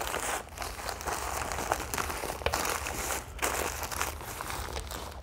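Newspaper being crumpled and folded by hand around a wad of oil-soaked sawdust: continuous rustling and crinkling with many sharp crackles of the paper.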